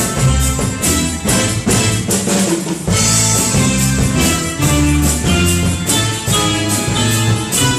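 Music with a drum kit keeping a steady beat under a bass line and sustained pitched instruments.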